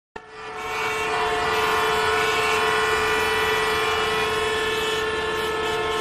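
A train horn sounding one long, steady blast of several held tones, swelling in over the first second.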